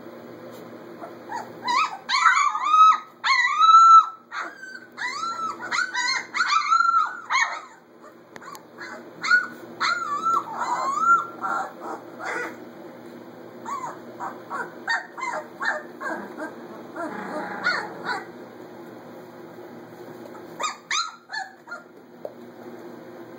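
A litter of Labrador retriever puppies whining and yipping: many short, high-pitched cries that rise and fall, thickest in the first several seconds and again near the end, over a steady low hum.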